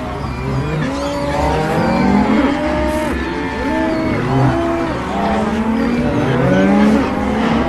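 Stomach-growling sound effects, many overlapping at once: a dense, continuous tangle of pitched groans that bend up and down.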